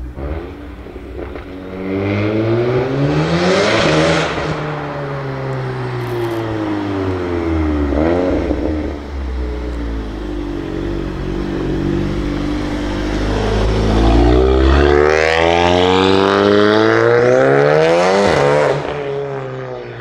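Stage 2 tuned Seat Leon Cupra ST's turbocharged 2.0-litre four-cylinder, fitted with a larger TTH 650 turbo, accelerating hard: the engine note climbs in pitch, eases off and settles, then climbs again before cutting off sharply near the end.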